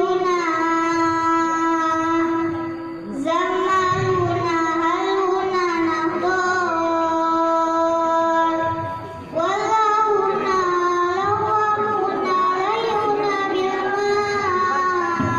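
A child's voice singing solo through a microphone with a marawis group, drawing out long, ornamented notes. The singer breathes about three seconds in and again about nine seconds in.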